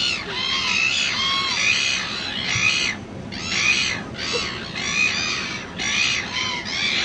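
A flock of birds calling, many short, arching calls overlapping in a continuous chorus that swells and dips every second or so, with brief lulls.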